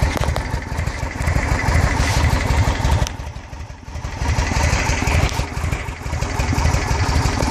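Yamaha XV1700 Road Star's air-cooled V-twin idling evenly, a steady low pulsing beat. It dips briefly in level about three seconds in, then comes back.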